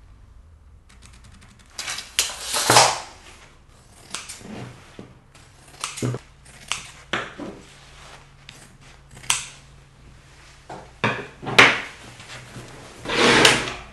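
Scissors cutting through fabric in irregular snips and rustles, with a few longer cutting strokes.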